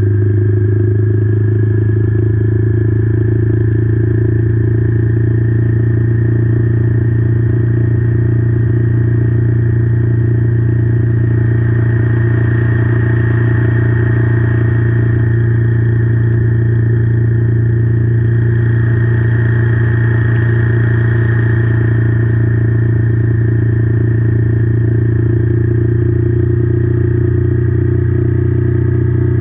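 Royal Enfield Meteor 350's single-cylinder engine running steadily at cruising speed, mixed with wind and road noise.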